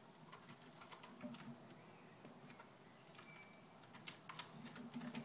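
A cat's claws catching on the sisal rope of a cat-tree post as it climbs, making faint, irregular clicks and scratches.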